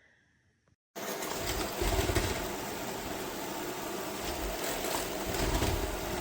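Robot vacuum cleaner running: a steady whirring hiss that starts suddenly about a second in, with a low rumble that swells twice.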